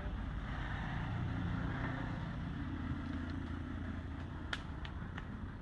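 Steady low outdoor rumble, with three or four sharp little clicks about four and a half to five seconds in.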